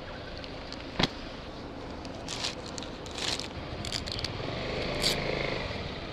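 A sharp click about a second in, then scraping and crinkling as the straps and plastic cover on an e-bike's rear cargo rack are undone. Near the end a vehicle engine hum swells and fades.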